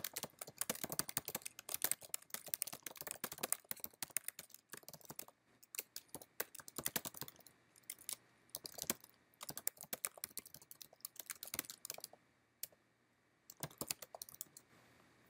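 Typing on a computer keyboard: quick runs of key clicks broken by short pauses, stopping near the end.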